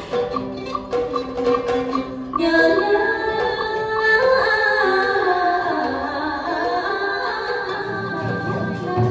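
Traditional Vietnamese water-puppet theatre music. A plucked string instrument repeats short notes, then about two and a half seconds in a sustained, sliding melody takes over, with singing.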